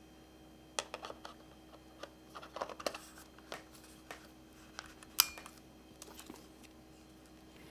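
Small clicks and taps of plastic and metal as a Sigma 10-18mm F2.8 lens is handled and twisted onto a Sony E-mount camera body, with one sharp click about five seconds in.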